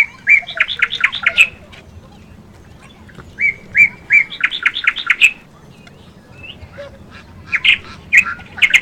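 Ducks calling in three bouts of quick, repeated calls: one at the start, one about three and a half seconds in, and one near the end.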